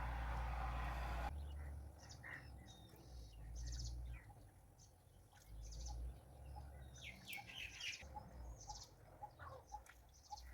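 Birds chirping in short, scattered high calls, with a faint short note repeating about three times a second in the second half. A burst of noise at the start cuts off suddenly about a second in.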